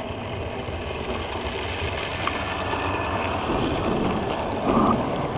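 Tampa Bay Buccaneers-themed model train rolling past close by: a steady rumble and clatter of its wheels on the track and its running gear, growing louder as it comes near, with a brief louder burst near the end.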